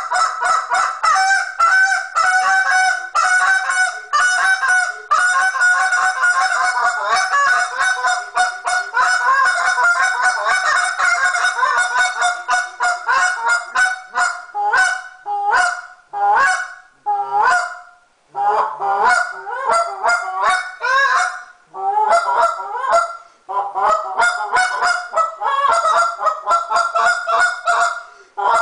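Hand-blown goose call worked in a fast, unbroken run of honks and clucks. After about halfway it breaks into shorter bursts separated by brief pauses.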